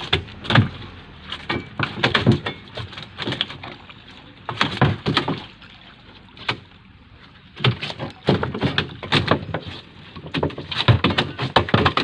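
A run of irregular knocks and clatters coming in quick clusters, with a lull around the middle.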